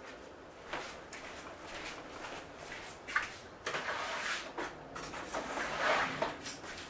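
Kitchen drawer opened and rummaged through off-camera, with scattered knocks, clinks of utensils and rustling as a measuring spoon is fetched. The handling is busiest and loudest near the end.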